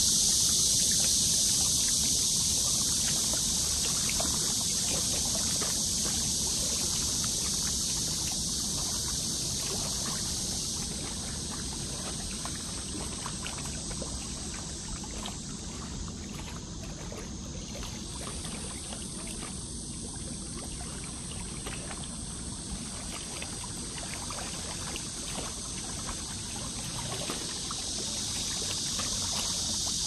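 Small river waves lapping and splashing irregularly against a rocky bank, over a steady high hiss.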